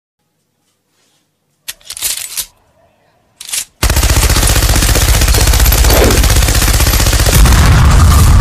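Machine-gun fire sound effect: two short loud sounds, then sustained rapid automatic fire from about four seconds in, joined near the end by a deep explosion.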